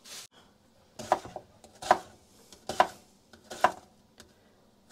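Knife slicing a peeled onion on a wooden cutting board: four even cuts a little under a second apart, each ending with the blade knocking on the board.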